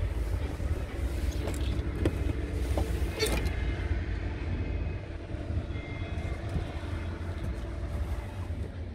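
Scania R truck's diesel engine idling steadily with a low drone, heard from inside the cab. A few short clicks and knocks about one to three and a half seconds in.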